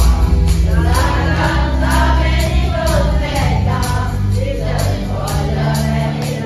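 A group of children singing together over a backing track with heavy bass and a steady beat.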